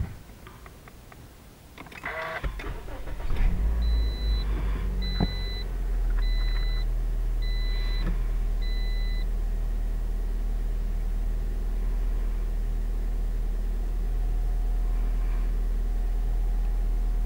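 2011 Toyota Corolla started with its push button: the starter cranks briefly about two seconds in, the engine catches, revs up, then settles into a steady idle. Five short beeps sound while it settles. The idle runs free of the rattle from the aluminium heat shield on the muffler, now wired in place.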